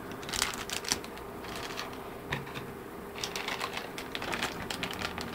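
Clear plastic packaging bag crinkling and crackling as it is handled, in two spells of quick clicky rustles, the second starting about three seconds in.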